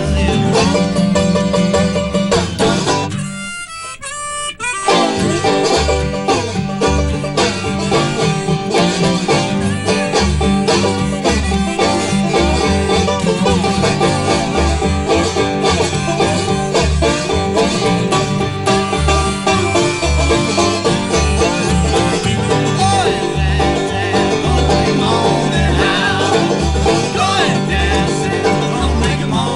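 A bluegrass string band playing live, with banjo, acoustic guitar and upright bass. About three seconds in the band drops out for a moment, then kicks back in.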